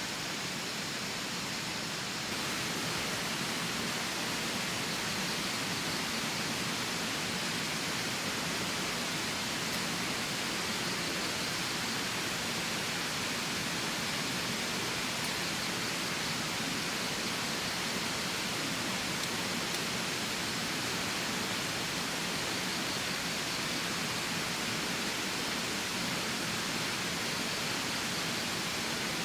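Steady, even rushing of water, a continuous hiss with no separate drops or splashes standing out; its tone shifts slightly about two seconds in.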